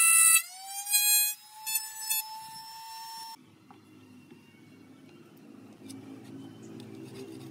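Benchtop table saw motor whining as the blade comes through a cut in a pine board. Within the first second the whine drops in level and then climbs steadily in pitch as the motor unloads, with a couple of brief rasps of blade on wood. It stops abruptly about three seconds in, leaving a faint low hum and a few light ticks of a steel square and pencil on the board.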